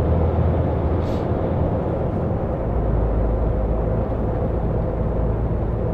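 Cab interior noise of a MAN TGX XXL truck driving: the 500 hp diesel engine running with tyre and road noise. The engine note drops lower about two seconds in, and there is a faint short tick about a second in.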